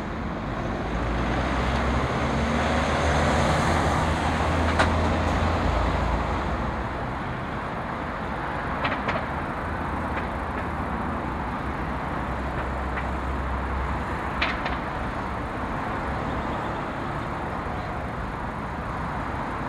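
Steady low engine rumble over road traffic noise, the rumble dying away a little past halfway, with a few faint short knocks.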